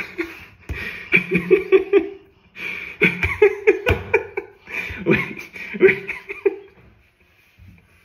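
A man laughing heartily in three bouts of quick, rhythmic pulses, which stop near the end.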